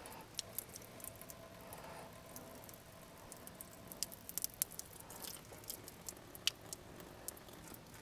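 Faint, irregular small ticks and taps from a clear plastic water-lubrication tube being handled, with water dripping from its end.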